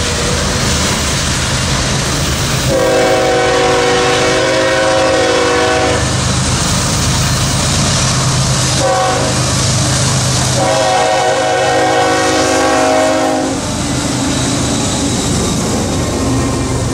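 Diesel freight locomotive horn sounding a chord in three blasts, long, short, then long, as a Norfolk Southern intermodal train approaches and passes. The steady rumble of the locomotives and rolling freight cars runs underneath.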